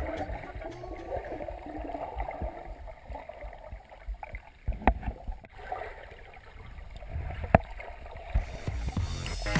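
Muffled underwater sound of lake water moving around a GoPro in its waterproof housing: a low rumbling wash with a few sharp clicks, the loudest about halfway through and again near the end.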